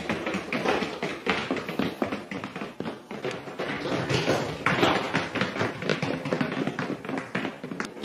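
A small husky-like dog's booted paws tapping on a hard floor: a quick, irregular patter of many steps as it walks and trots.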